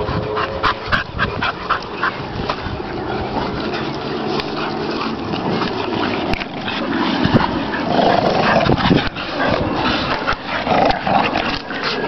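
Bull terriers and a Staffordshire bull terrier play-fighting, making dog noises throughout, with short sharp sounds in the first couple of seconds and louder noises in the second half.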